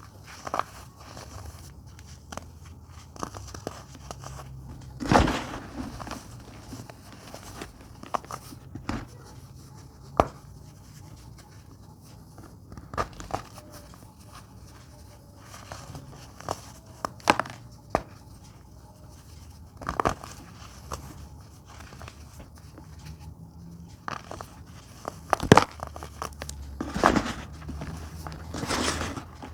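Dried baking soda being crumbled and crushed: scattered crisp crunches and crackles, with a few louder snaps.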